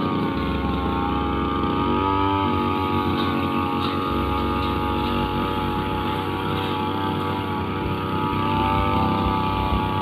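Riu two-stroke brushcutter running steadily at high speed, its engine holding an even pitch.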